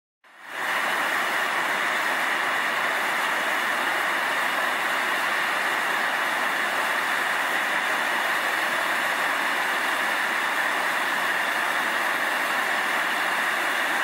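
Steam venting from a fumarole, a steady hissing rush that comes in just after the start and then holds even.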